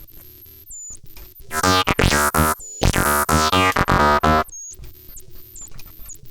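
Blipblox synthesizer played through a Doepfer Eurorack modular patch: quiet at first, then loud filtered synth notes with a sweeping tone break in about a second and a half in. They drop out briefly and stop after about three seconds, leaving the quieter sound again.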